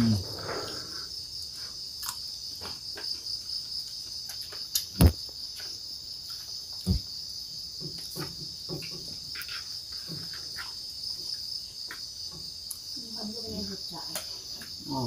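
Steady high-pitched chorus of insects chirring, like crickets at night. A sharp knock sounds about five seconds in, with a smaller one about two seconds later.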